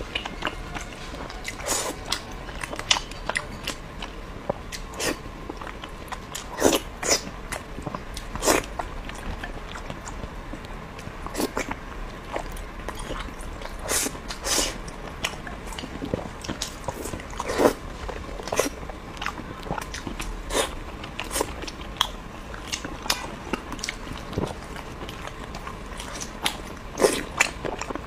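A person eating pork close to the microphone: wet chewing, lip smacks and bites come as irregular sharp clicks, a few every second, some much louder than the rest.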